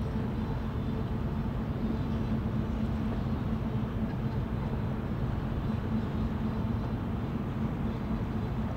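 G-tug Iowa's diesel engine running under load while towing a barge on a line, a steady low drone.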